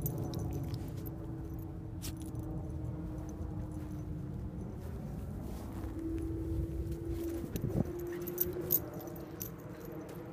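Dog's collar tags jingling and clinking as it moves about with a ball, over a steady motor hum in the background.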